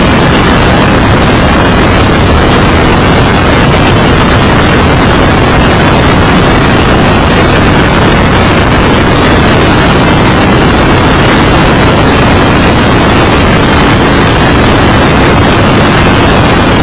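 IndyCar-style open-wheel race car at speed on an oval, heard from a camera mounted on the car: very loud, steady engine and wind rush that stays even throughout.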